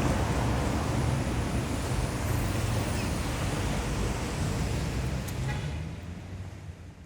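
Dense city traffic: a steady low hum of engines and the rush of tyres on asphalt, fading out over the last second or so.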